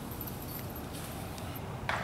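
Disc golf basket chains jingling faintly as they settle after a putt strikes them, with a few light clinks, then a single short knock near the end.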